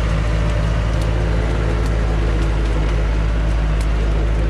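Engine of a heavily loaded acacia-log truck running steadily under load as it pushes through deep mud after getting stuck.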